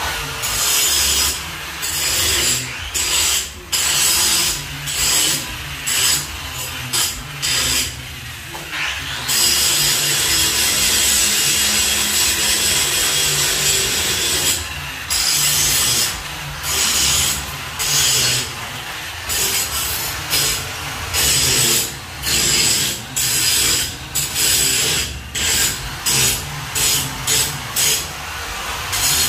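Handheld power tool running in repeated bursts, starting and stopping many times, with one unbroken run of about five seconds near the middle and quick bursts about once a second in the later part.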